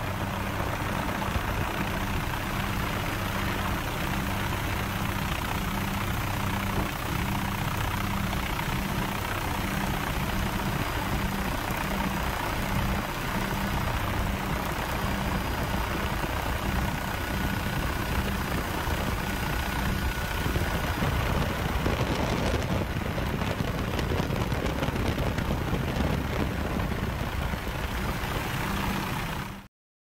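Helicopter engine and rotor noise, steady and loud, cutting off suddenly near the end.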